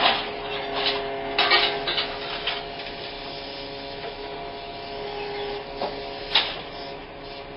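Excavator engine and hydraulics running with a steady hum while a small scrap-metal shear attachment works a pile of scrap, with a few sharp clanks of metal, the loudest a little before the end.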